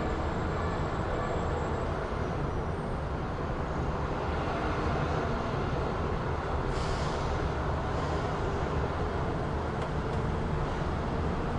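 City street ambience: a steady low rumble of vehicles, with a brief hiss about two-thirds of the way through.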